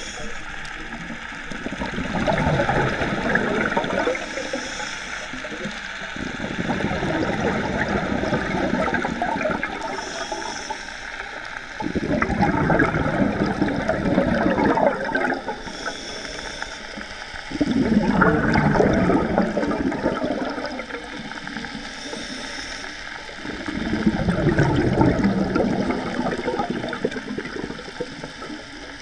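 Scuba diver breathing through a regulator underwater. Five bubbling rushes of exhaled air from the exhaust valve come about every five to six seconds, each separated by a short, thin hiss as the diver inhales.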